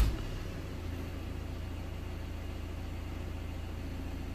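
2013 Ford Transit diesel engine idling steadily just after starting, heard from inside the cab.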